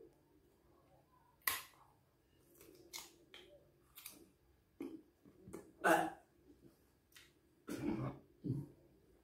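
A man chewing a bite of raw, unripe sapodilla, with a string of short, sharp mouth noises, then gagging and retching sounds near the end at the fruit's bad taste.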